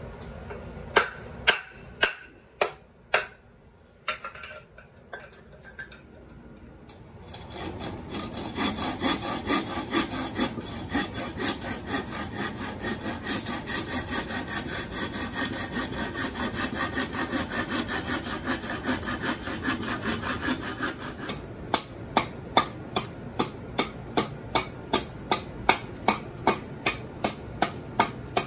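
A few sharp wooden knocks of a baton striking the back of a Husqvarna carpenter's axe to split a pine board. Then a long run of quick back-and-forth sawing strokes of a knife blade cutting across the pine. About three-quarters of the way through, the axe begins chopping the pine in a steady series of sharp strikes, about three a second.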